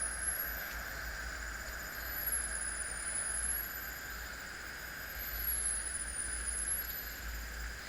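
Steady background hiss and low hum, with a faint high whine that glides up and down over and over.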